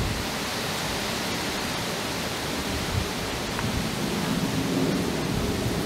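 Boeing 747-8 freighter's four GEnx-2B turbofans heard high overhead: a steady, even jet rumble with hiss, swelling a little in the lower range toward the end.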